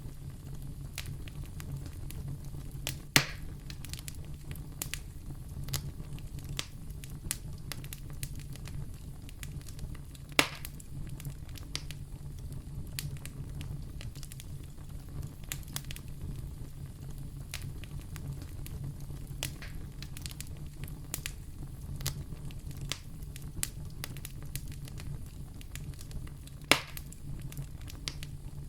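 Wood fire burning in a fireplace, crackling with many small snaps over a steady low rumble, and three sharp, much louder pops about 3, 10 and 27 seconds in.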